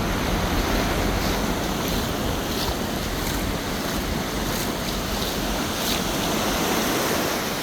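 Surf breaking and washing up the beach, a steady swelling noise, with wind rumbling on the microphone that eases about two-thirds of the way through.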